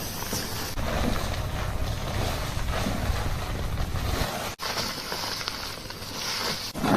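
Hair being washed at a salon wash basin: a steady rushing, watery noise with a low rumble, which breaks off briefly about four and a half seconds in and comes back as a thinner hiss.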